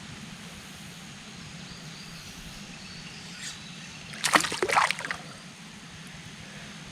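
Water splashing and sloshing in a short burst a little over four seconds in, over a steady low hum.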